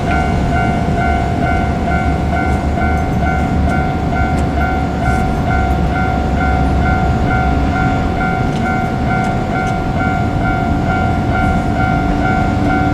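Japanese level crossing warning bell ringing in a fast, even, repeating ding, over the low rumble of a KiHa 200 diesel railcar that eases off about halfway through.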